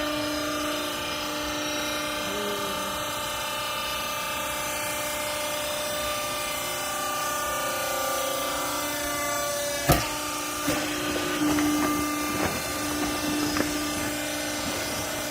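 Hydraulic clothes baler running with a steady droning whine from its pump motor. A sharp bang about ten seconds in is followed by several lighter knocks.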